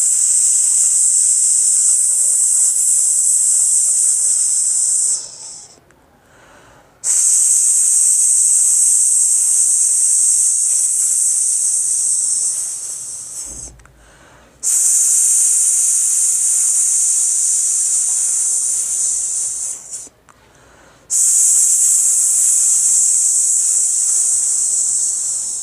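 A man's voiceless 'sss' hiss, held long through the teeth four times in a row, each about five to six seconds with a short breath between. It is a speech-therapy exercise for nasal speech: all the air is pushed out through the mouth.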